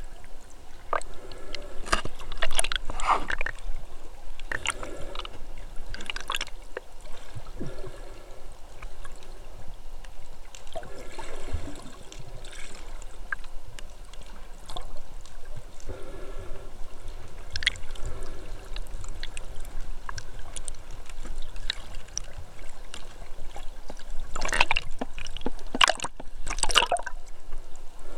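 Sea water sloshing and gurgling around a camera held just below the surface, with sharp splashes and crackles, clustered about two to three seconds in and again near the end.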